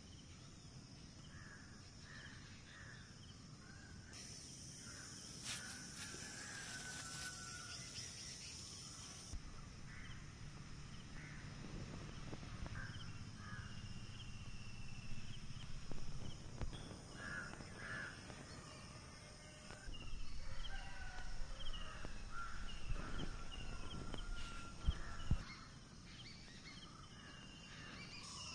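Outdoor ambience: birds calling and chirping repeatedly over a steady high-pitched insect drone, which swells for a few seconds about four seconds in. A couple of sharp knocks come near the end.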